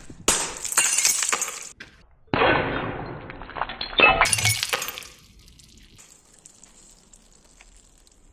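Glass bottles being crushed and breaking: three stretches of crunching, crackling glass, each a second or two long, the last two running straight into each other about four seconds in, then only faint small sounds.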